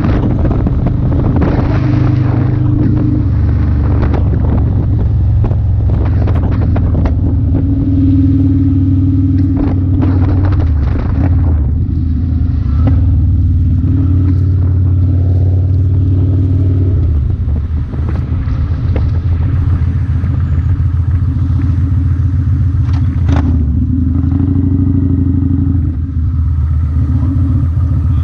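Motorcycle engine running on the road at a steady pace, its note shifting a few times, under loud wind rushing over the microphone.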